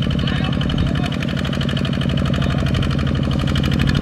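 Kubota RT155 walking tractor's single-cylinder diesel engine running steadily under load as the machine works through deep mud, with a rapid, even beat of firing pulses.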